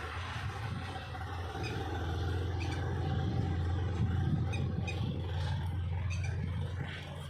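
A machine running with a steady low hum, a little louder from about two to five seconds in.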